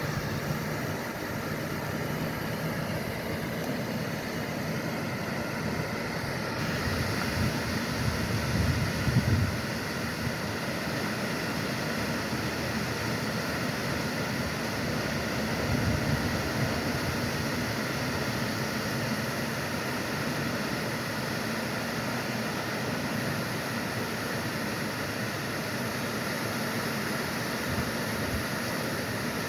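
Waterfall: a steady rush of falling water, with brief low rumbles about nine and sixteen seconds in.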